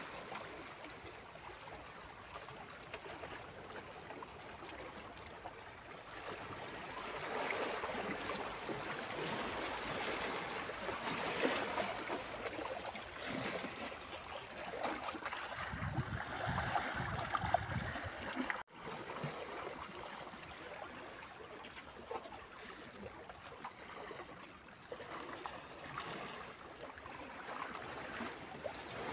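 Small sea waves lapping and splashing among shoreline boulders, a steady watery wash that swells louder through the middle, with a momentary dropout about two-thirds of the way through.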